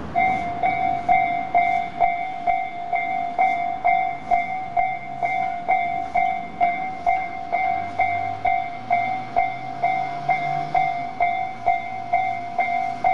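Japanese electronic level-crossing warning bell on the Tobu Isesaki Line, the tone most common on Tobu lines, starting and then dinging steadily a little over twice a second: the crossing's warning that a train is approaching.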